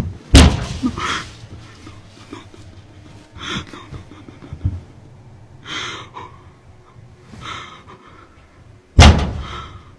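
A person breathing hard, with a breathy gasp about every two seconds. A loud bang comes about half a second in and another near the end.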